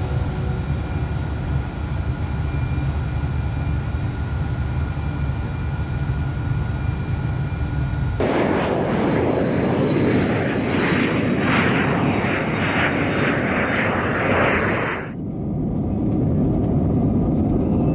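Jet airliner engines. First a low rumble with a steady whine as the jets taxi. About 8 s in it cuts to a louder, fuller jet roar from a jet on the runway. About 15 s in it cuts to the duller, steady drone of engines heard from inside the cabin in flight.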